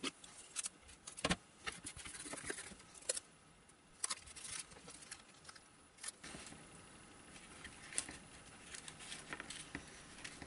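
Adhesive covering tape being pressed and smoothed onto a foam model-plane fuselage and cut with scissors: a run of rustles, crinkles and sharp little clicks.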